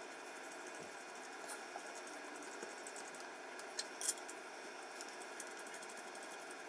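Small clicks and taps of 3D-printed plastic parts and metal posts being handled and fitted together, one sharper click about four seconds in, over a faint steady hiss.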